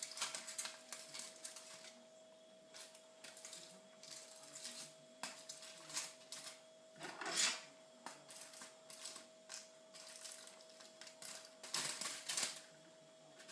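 Knife and fork clicking and scraping against a baking tray while chicken pieces are turned over: a run of irregular taps and scrapes, with louder clatters about seven seconds in and again near the end, over a faint steady hum.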